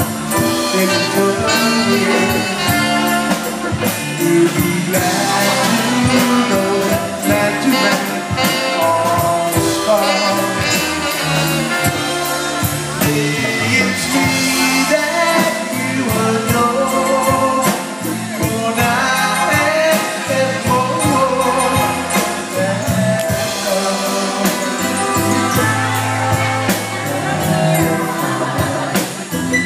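Live band playing an instrumental passage of a jazz-pop ballad, with a horn section of saxophone, trumpet and trombone over electric guitar and drum kit.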